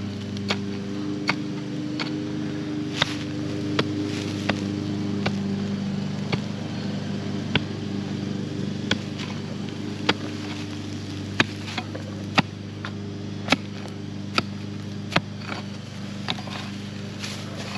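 A mattock chopping into hard, stony soil: sharp, short strikes, irregular and about once a second, over a steady low hum.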